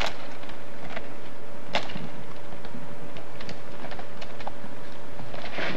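Roofers tearing off old wooden shingles: irregular knocks, cracks and clatter of tools striking and prying wood, with louder strikes at the start, about two seconds in and near the end, over a faint steady hum.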